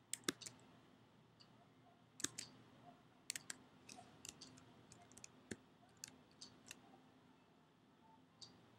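Scattered sharp clicks from a computer mouse and keyboard, several in quick clusters, over a faint low hum.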